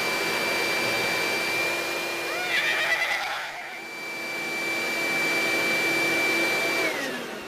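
Vacuum cleaner running through its hose with a steady whine. About two and a half seconds in a brief wavering squeal sounds over it, and near the end the motor winds down with a falling whine.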